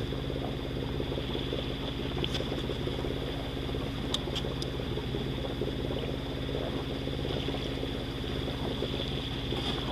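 Sailboat's engine running at a steady speed under way, an even low drone with no change in pitch.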